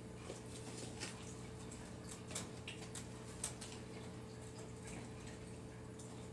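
A raccoon eating cat food from a plastic bowl: scattered faint clicks and crunches, over a steady low hum.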